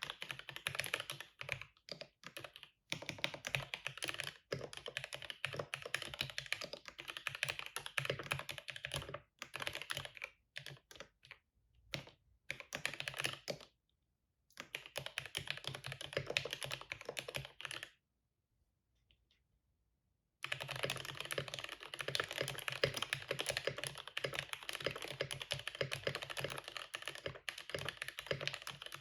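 Steady typing on a 60% mechanical keyboard with a hand-cut cardboard case, Gateron Milky Yellow linear switches, an aluminium half-plate and PBT keycaps. Rapid key clacks come in runs with brief breaks, then stop for a couple of seconds about two-thirds of the way through before typing picks up again.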